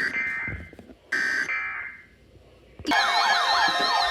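Emergency Alert System SAME header: two short, harsh digital data bursts about a second apart, the header that opens a new warning. After a brief pause, a loud siren-like warbling attention tone starts near the end, its pitch sweeping up and down over and over.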